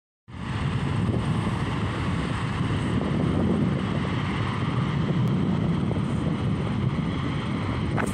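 Jet airliner engines rumbling steadily, with wind on the microphone. A short sharp click near the end.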